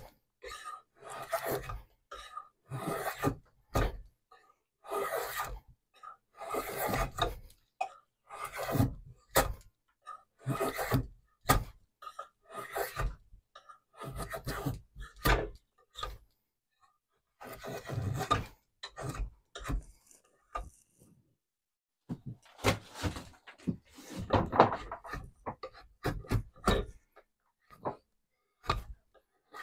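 A hand tool rasping and scraping across wood in repeated strokes, about one a second, with two brief pauses past the middle.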